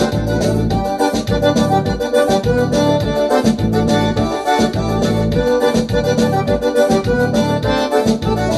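Music: an instrumental passage of a song led by electronic keyboard, over a bass line and a steady beat.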